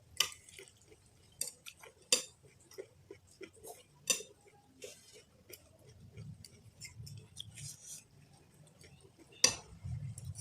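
Cutlery tapping and clinking against a bowl of noodle soup while eating: a run of sharp clicks, the loudest about two seconds in, about four seconds in and near the end, with fainter small ticks between.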